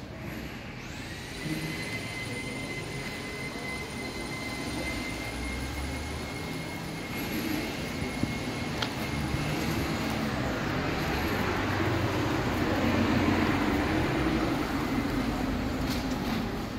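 Town street ambience: a steady hum of traffic that swells about two-thirds of the way through as a vehicle goes by. A thin, steady high whine runs over the first half.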